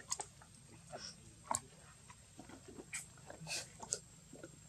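Macaques feeding on scattered food on stone: faint, irregular clicks and cracks of food being picked up and bitten, with a few brief animal squeaks among them.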